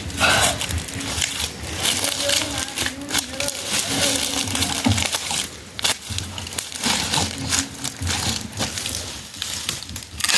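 Continuous dense rustling, crackling and crunching of dry material being handled or crushed.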